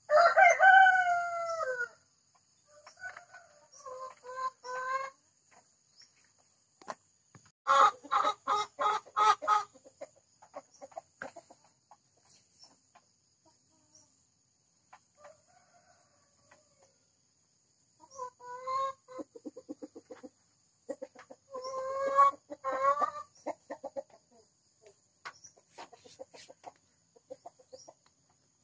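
Hybrid laying hens calling: the loud, drawn-out cackling and clucking of hens about to lay. One long, falling call at the start, then clucks, a fast run of calls about eight seconds in, and another run around twenty seconds.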